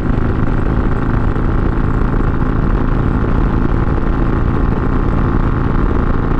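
Harley-Davidson Iron 883 Sportster's air-cooled 883 cc V-twin running steadily at highway cruising speed through a Two Brothers Racing Comp S stainless 2-into-1 exhaust.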